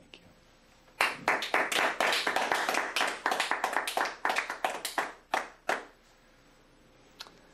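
Small group applauding with distinct separate claps, starting about a second in and thinning out to a stop after about five seconds, with one stray clap near the end.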